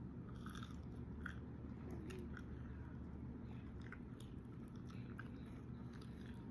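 A person wearing braces chewing a french fry close to the microphone: faint, irregular crunching and mouth smacks over a low steady hum.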